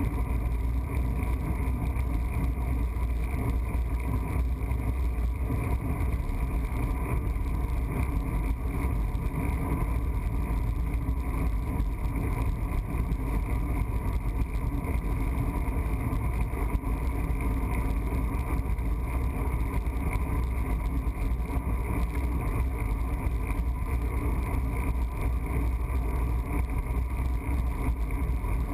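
Wind buffeting the microphone of a camera mounted on a moving road bike, with tyre and road noise: a steady, unbroken low rumble.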